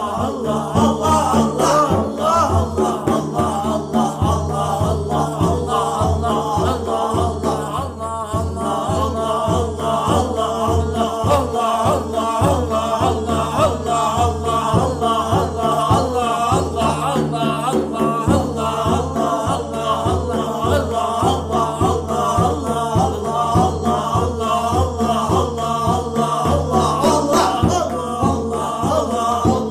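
Devotional Islamic dhikr chanting: voices repeating the name of God in a rhythmic chant over a steady held drone, with a regular low pulse beneath.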